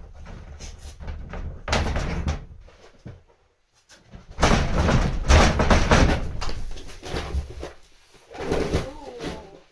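Kittens scrabbling at a paper shoji screen: the paper rustles and tears while the wooden frame rattles and knocks, in several loud bursts with a short lull about three and a half seconds in.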